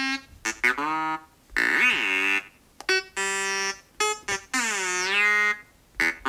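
Bebot synthesizer app on a phone playing a string of short electronic chirps and longer notes that swoop up and down in pitch, with brief gaps between phrases, imitating BB-8's droid chatter.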